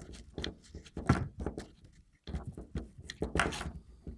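Clicks, knocks and rattles of metal and plastic parts being handled as a parking brake cable end is fitted into an electronic parking brake unit; a sharp knock about a second in, and a busy run of clicks from about two seconds in.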